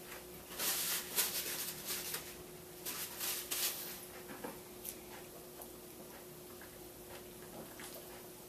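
Eating noises at a table: a few seconds of rustling, crinkly noise while fries are eaten from a foil-wrapped meal, then a few faint clicks and taps over a faint steady hum.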